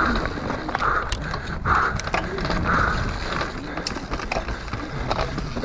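Mountain bike descending a dirt trail at speed: tyres rolling over dirt and roots, with the bike's frame and chain rattling and many sharp knocks over bumps.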